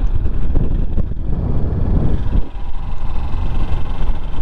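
Kawasaki Ninja sport motorcycle under way, its engine running under a steady rush of wind on the microphone. It gets louder from about a second in and dips briefly about halfway through.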